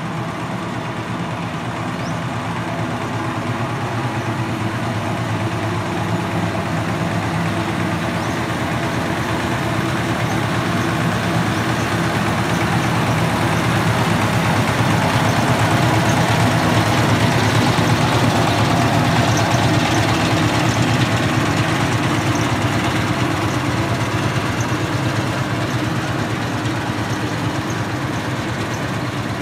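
Single-cylinder diesel engine of a boat-hull rice-field tiller running steadily as the machine drives along the road. It grows louder as it passes about halfway through, then fades as it moves away.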